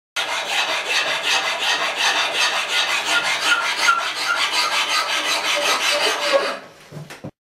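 A hand tool scraping wood in quick, even back-and-forth strokes, several a second. It stops near the end.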